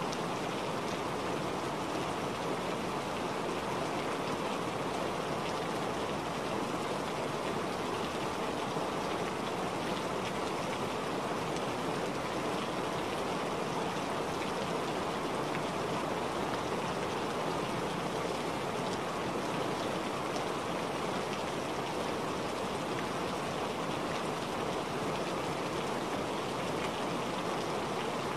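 Steady recorded water ambience: an even rushing hiss with no breaks or changes, serving as the masking background track of a subliminal audio.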